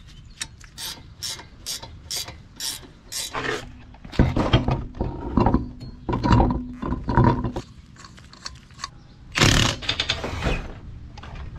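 Ratchet wrench clicking in a steady run as the brake caliper bolts are tightened, followed by several short bursts of a whirring power tool as the wheel's lug nuts are run on, and a brief loud rush of noise near the end.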